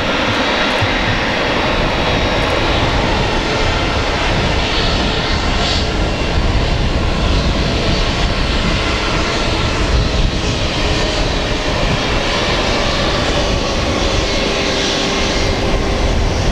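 Airbus A320's twin IAE V2500 turbofan engines running at taxi power as the jet rolls along the runway: a steady jet rush with a faint whine.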